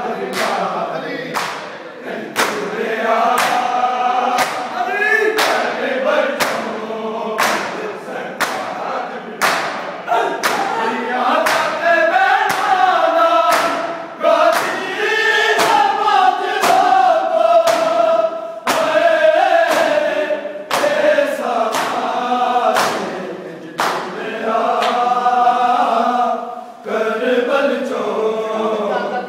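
A noha sung in unison by a chorus of men, with sharp open-hand slaps about once a second: matam, the rhythmic chest-beating of Shia mourning.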